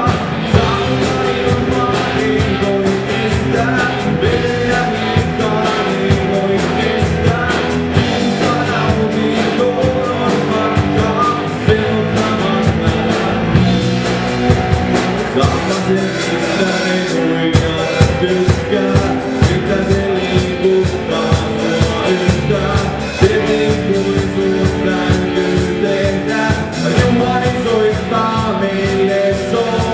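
Live rock band playing loud with electric guitars, bass and drums, with sung vocals.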